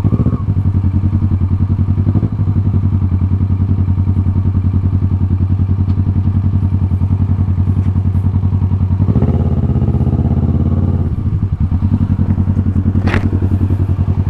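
2017 Kawasaki Ninja 650's parallel-twin engine running at low speed as the bike rolls slowly. The engine note changes briefly about nine seconds in, and a sharp click comes near the end.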